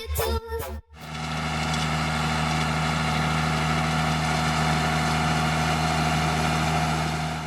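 New Holland T6030 tractor engine running steadily at a constant speed, its note not changing. The sound starts after a brief cut about a second in, following the end of the music.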